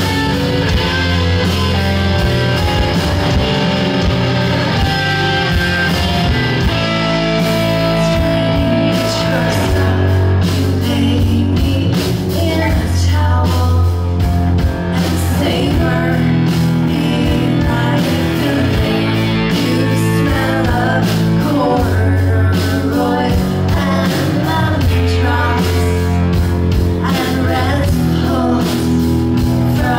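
Live rock band playing loudly: two electric guitars over bass and drums, with a woman singing lead.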